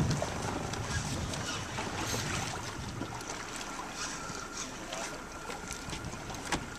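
Wind buffeting the microphone over water lapping around a boat, heaviest at the very start, with scattered light clicks and, from about two seconds in, a faint steady whine.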